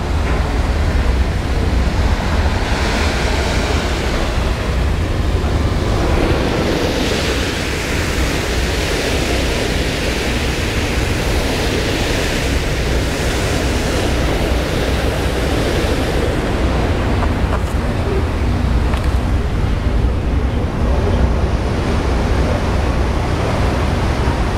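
Wind buffeting the microphone over the steady rush of a ferry's wake churning past the hull. The hiss of the water swells in the middle.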